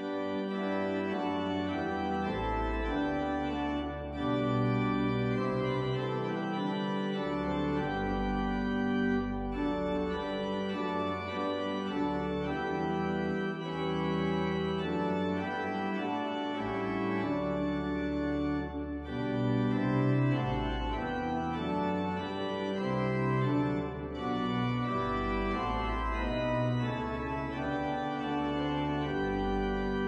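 Organ music playing sustained chords that change every second or two over a bass line.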